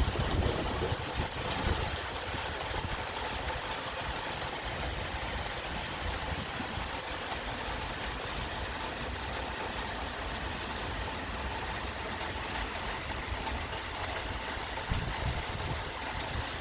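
Steady rain falling: an even hiss with scattered fine drop ticks, over a low, uneven rumble.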